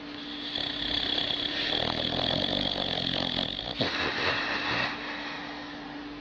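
A sleeping dog snoring: long, rough, noisy breaths over a steady low hum.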